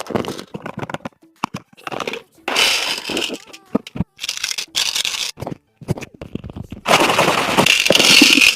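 Candy packaging being opened: plastic wrappers crinkling and tearing in a run of sharp crackles and clicks, with longer stretches of dense rustling about two and a half seconds in, again around four seconds, and from about seven seconds on.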